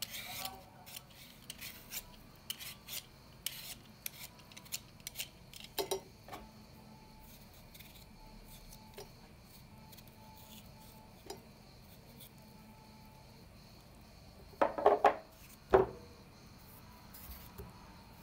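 Raw potato being peeled with a Y-shaped vegetable peeler: a run of short scraping strokes, then a paring knife scraping at the potato more quietly. About fifteen seconds in come a few loud sharp knocks of hard things set down on plate or glass bowl.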